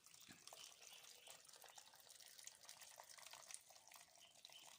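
Faint trickling and dripping of boiled, cooled water being poured over salted lemons to cover them for pickling.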